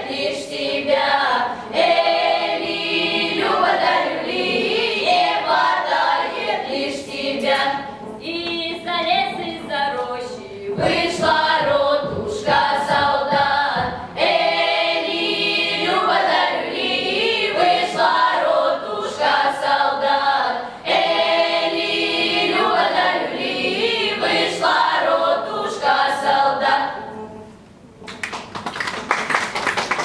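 A children's folk choir singing a Cossack marching song a cappella in full voice, with phrases breaking off and restarting every few seconds. The singing ends about 27 seconds in, and applause follows near the end.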